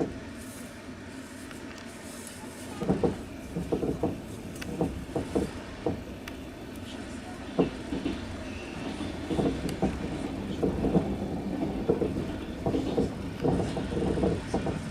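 Passenger train carriage running on the rails, heard from inside: a steady rumble with the clatter of wheels knocking over rail joints. The rumble grows louder about three seconds in.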